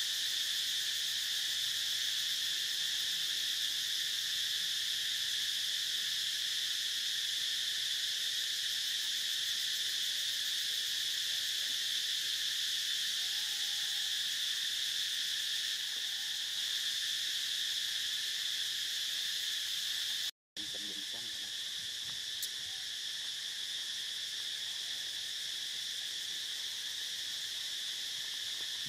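Steady, high-pitched insect chorus of crickets and cicadas in forest, droning without a break except for a split-second drop-out about two-thirds of the way through.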